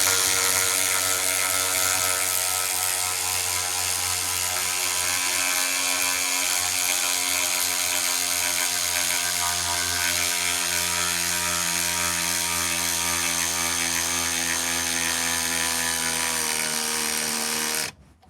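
DeWalt DCS510 cordless sealed-head ratchet running steadily under load, driving a 3/8 by 8 inch lag screw, then stopping abruptly near the end.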